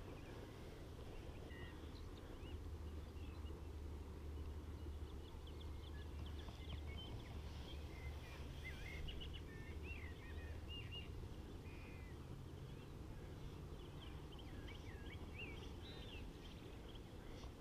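Faint birdsong: many short chirps and whistled notes from small birds, over a low steady rumble.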